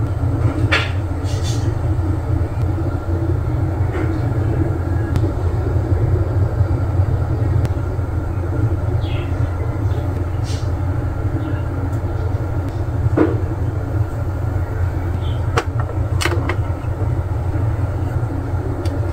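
Steady low rumble, with a few light clicks and short scrapes of small plastic figure parts being handled.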